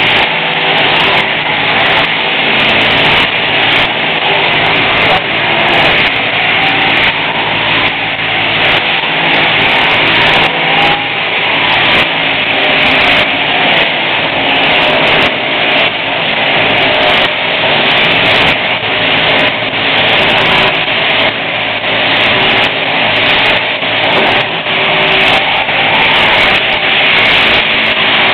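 Powered sheep-shearing handpiece running steadily as its cutter clips through the fleece, a continuous mechanical buzz that swells and dips slightly with each stroke.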